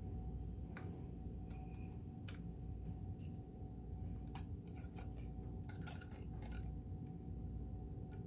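Scattered light clicks and ticks from the opened Kenmore sewing machine's metal mechanism as it is handled and turned by hand, over a steady low hum.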